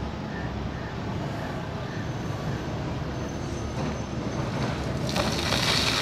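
Steady engine and traffic hum from an earthworks site, with a tracked excavator working. About five seconds in, a louder rushing noise starts as earth pours down the dug face from the excavator.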